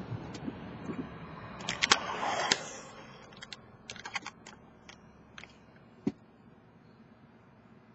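A run of light clicks and taps, with a louder rustling burst about two seconds in, over low car road noise inside the cabin that fades away after about three seconds.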